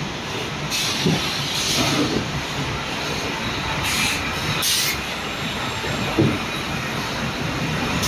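Refrigerator factory production-line machinery running steadily, with several short hissing bursts and a couple of knocks.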